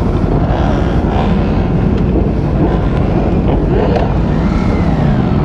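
Several motorcycle engines running, with rising and falling revs, and wind noise on the microphone.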